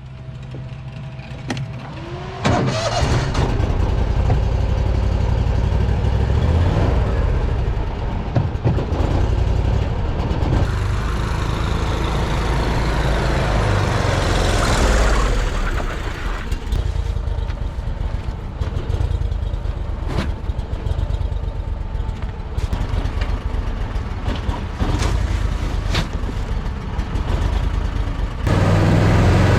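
An engine starts about two and a half seconds in and then runs steadily with a deep, low sound.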